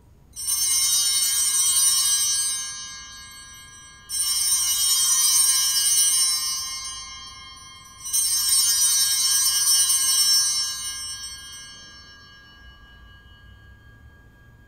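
Altar bells (Sanctus bells) rung three times, about four seconds apart. Each peal is a bright jingling ring held for about two seconds before it fades. They mark the elevation of the chalice at the consecration.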